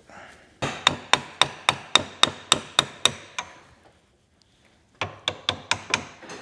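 Hammer striking a steel socket stuck on a nut clamped in a bench vise: a quick run of about a dozen ringing metal-on-metal blows, about four a second, then a pause and about six more. The blows are knocking the too-tight socket back off the nut.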